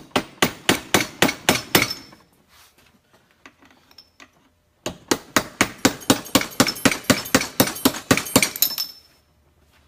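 Hammer rapidly tapping a steel punch set in the end cap of a motocross rear shock's reservoir, working the cap loose for removal. A quick run of ringing metallic strikes lasts about two seconds, then after a pause a longer run of about four seconds follows.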